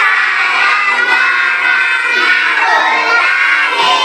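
A class of young children's voices shouting together, loud and continuous.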